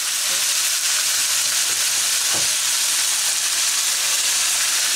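Minced beef and pork frying with onion in a frying pan, a steady even sizzle.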